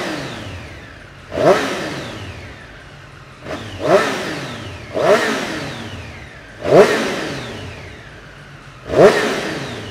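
Triumph Street Triple RS's three-cylinder engine revved while standing in neutral: five sharp throttle blips, each rising fast and falling back more slowly to idle, through the redesigned exhaust.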